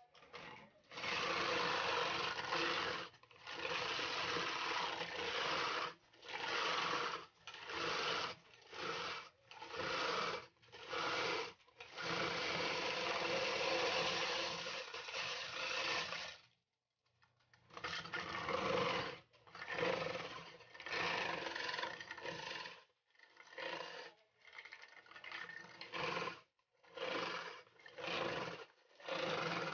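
Electric ice shaver grinding ice cubes into shaved ice, its blade and motor running in repeated bursts of one to four seconds that stop and start again, the longest about four seconds a little before halfway.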